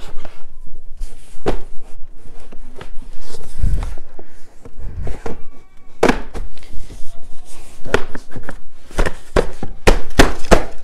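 Plastic parts of an Infantino high chair knocked and pushed together by hand as a piece is worked into place: a run of irregular thunks and clicks, with a couple of duller thuds about four and five seconds in and the loudest, closest-spaced knocks in the last few seconds.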